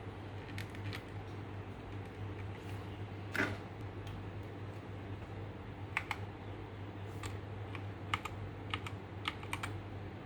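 Keychron K2 mechanical keyboard with Gateron Brown switches being typed on: single keystrokes pressed one at a time with gaps between them, with a heavier, longer stroke about three and a half seconds in.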